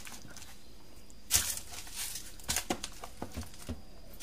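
Salted fish being handled and laid into coarse salt: a few short scrapes and taps, the clearest about a second in and a small cluster near the end.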